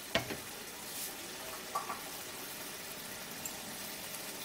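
Bottle gourd curry in poppy-seed and mustard paste simmering in an aluminium kadai, a steady soft bubbling. There is a sharp click about a quarter second in.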